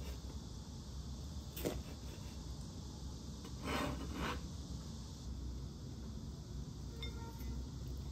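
A steel cleaver knocks once on a plastic cutting board, then its blade scrapes along the board for about a second as it slides under the sliced chicken to scoop it up.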